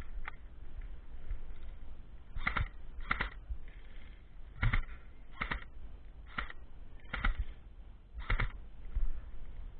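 A series of about seven short, sharp clicks or knocks, irregularly spaced roughly a second apart.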